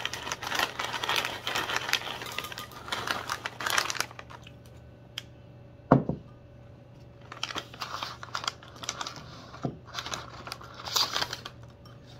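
Crinkling plastic snack bag as kettle corn is shaken out of it into a bowl, dense for the first few seconds and then in short bouts. A single sharp knock about six seconds in.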